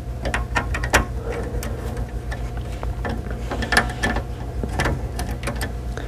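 Small screwdriver working the screw terminals on an alarm control panel's plastic terminal block: irregular small clicks and scrapes as the terminal screws are loosened and the wires pulled out.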